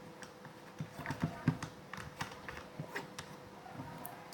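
A series of light, irregular clicks and taps: a plastic glue bottle and container being handled after the glue is squeezed out.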